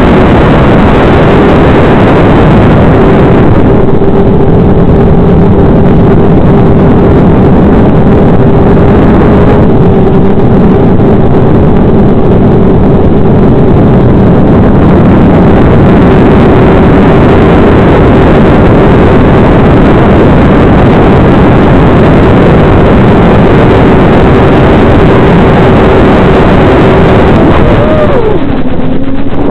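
Electric motor and propeller of an FPV aircraft buzzing at a steady pitch under loud rushing noise. Near the end the pitch drops sharply and then climbs back, as the receiver loses signal and the failsafe engages.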